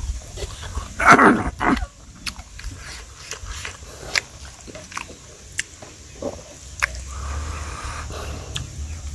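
A man eating rice and smoked pork by hand: chewing and wet mouth smacks, with many short clicks. A louder double burst comes about a second in.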